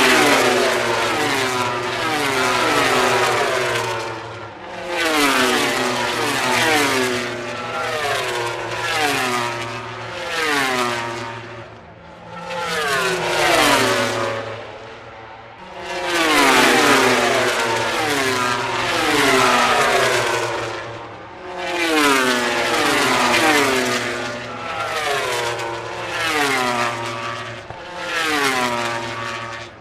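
MotoGP racing motorcycles' four-stroke engines at full throttle, passing one after another, about a dozen in all. The pitch of each drops sharply as it goes by.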